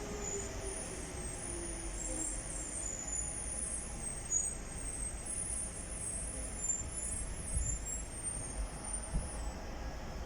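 Docklands Light Railway train pulling into the platform: its motor whine falls in pitch as it slows over the first three seconds, over a steady low rumble.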